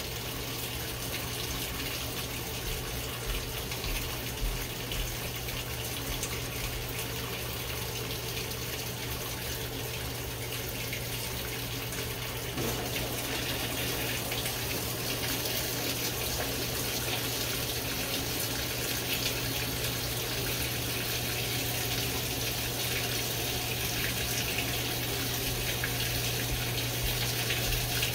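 GE GTW720BSN0WS top-load washer running, with water streaming steadily in the tub over a constant low hum; the sound steps up slightly about twelve seconds in.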